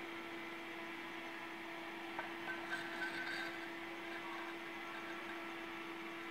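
Steady low hum over even background hiss, with a faint click about two seconds in: room tone.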